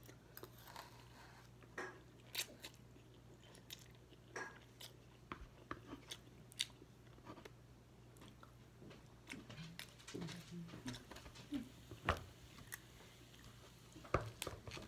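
Faint close-up chewing and mouth sounds of a person eating a bowl of noodles, rice and vegetables, with scattered short sharp clicks as a metal fork taps and scrapes the bowl. A steady low hum runs underneath.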